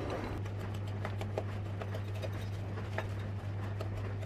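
Wooden spoon creaming butter and caster sugar in a glass bowl: soft irregular clicks and scrapes of the spoon against the glass, several a second, over a steady low hum.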